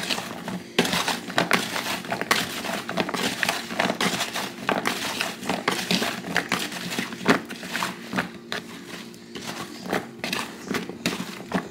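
Kitchen handling noise while seasoned lamb chops are being mixed and readied for the oven: a dense run of irregular crinkling, rustling and small clicks, over a faint steady hum.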